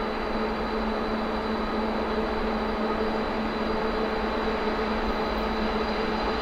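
Two-section 2TE116 diesel freight locomotive working hard as it climbs a grade with a loaded train, its engines giving a steady drone with a thin high whine above it, slowly growing louder as it approaches.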